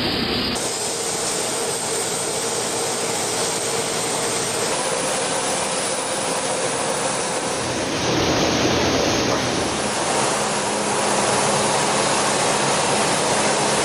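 Steady noise of a yarn-drying heat chamber's machinery running. The noise shifts slightly about half a second in and gets a little louder about eight seconds in.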